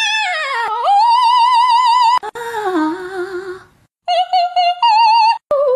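High sung notes with a steady, even vibrato, in short phrases broken by brief gaps; one phrase about two seconds in sits lower.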